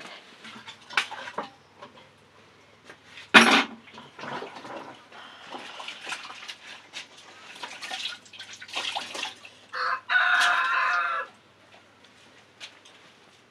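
Chickens clucking, with a sharp knock a few seconds in and a rooster crowing once, loudly, for over a second about ten seconds in.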